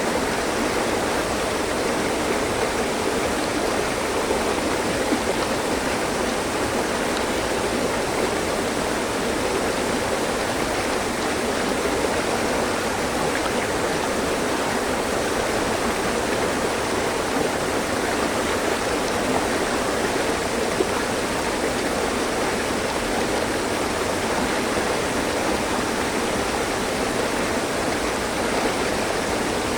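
Mountain stream running over rocks, a steady, even rush of water with a faint gurgle.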